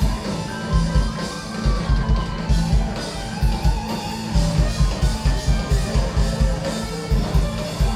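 Live rock band playing: electric guitars over bass and drum kit, with a steady driving beat and a heavy, boomy low end as heard from the crowd.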